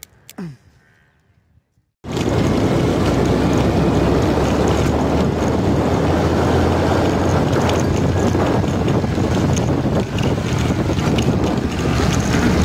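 Heavy wind rumble on the microphone while travelling in or on a moving vehicle, with the vehicle's running noise beneath. It starts suddenly about two seconds in and stays steady and loud.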